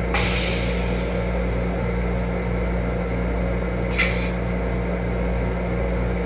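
Steady low hum of an M7 railcar's onboard equipment heard inside its small restroom. About four seconds in there is one brief, sharp hiss.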